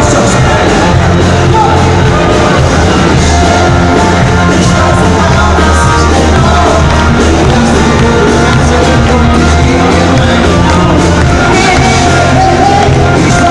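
Live pop-rock band playing loud, with a male lead singer over a steady bass line. Audience shouts are mixed in.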